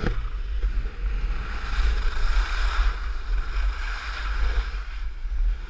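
Wind buffeting an action camera's microphone during a ski descent, a heavy low rumble. Over it, the hiss of skis sliding on packed snow swells and fades.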